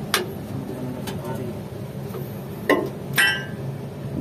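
Hammer striking steel on a truck's axle and suspension parts: a last blow just after the start ends a run of steady strikes. Then a low hum, a knock about two and a half seconds in, and a sharper metal clank that rings briefly about half a second later.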